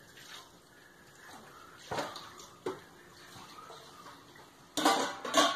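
Dishes and cutlery clinking: a couple of short sharp clinks about two seconds in, and a louder cluster of them near the end.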